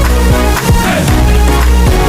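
Loud background music with a strong bass line and a steady beat.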